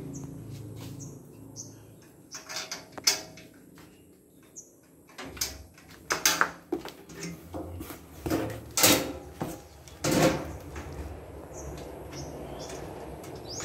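White tubular metal frame pieces of a dish drainage rack being handled and fitted together: a series of irregular knocks and clacks of metal against metal and cardboard, several of them sharp and loud.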